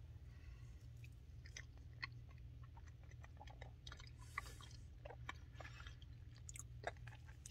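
A person chewing a mouthful of soft banana pudding, faint, with small wet mouth clicks scattered throughout, over a low steady hum.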